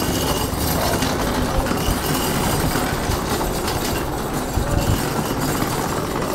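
A hand trolley being pushed over concrete paving, its wheels rolling with a steady rattling rumble.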